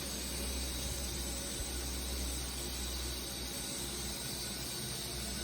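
Water running steadily from the tap of a newly plumbed bathroom sink, an even hiss, as the new drain connection is tested for leaks.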